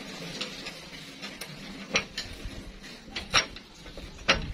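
A pipe wrench clinking and knocking against a threaded steel water pipe as it is set and turned on the pipe. There are a few sharp metallic knocks, the strongest about two seconds in, around three and a half seconds in, and near the end.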